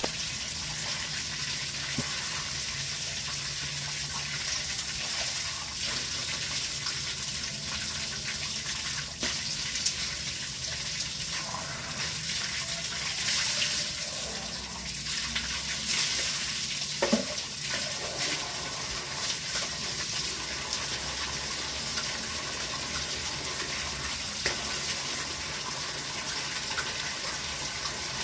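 Water flowing steadily along a stone-lined irrigation ditch, an even rushing hiss.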